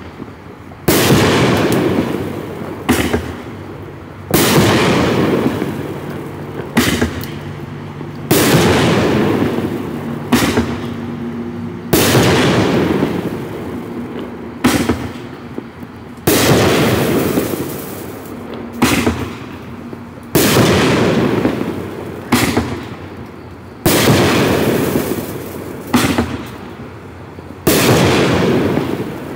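Black Cat 'Kingdom' 16-shot aerial firework cake firing its shells one at a time, about eight in all: each a launch thump followed about a second and a half later by a loud bang of the shell bursting, trailing off in a fading crackling hiss.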